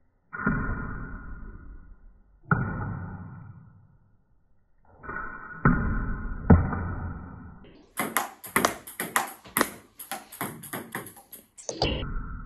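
Table tennis ball strikes, first heard as deep, drawn-out hits that fade slowly, a few seconds apart. From about eight seconds in, a fast rally of sharp clicks of the ball off paddle and table, about four a second, lasting nearly four seconds.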